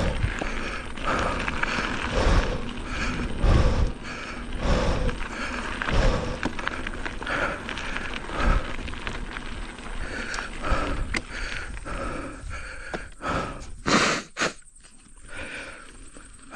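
Mountain bike ridden on a dirt trail: tyre, chain and frame noise with the rider's hard breathing, swelling and easing about once a second. Two sharp knocks come near the end, after which it goes quieter.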